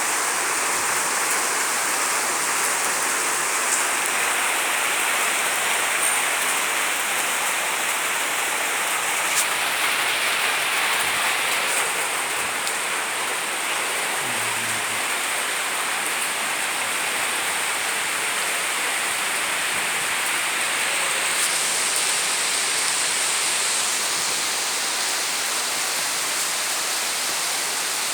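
Steady heavy rain falling, an even hiss of drops on surfaces with a few faint ticks.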